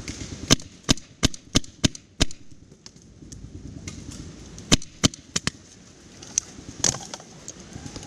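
Paintball markers firing: a quick string of six sharp pops at about three a second, then after a pause a cluster of four more and two scattered ones.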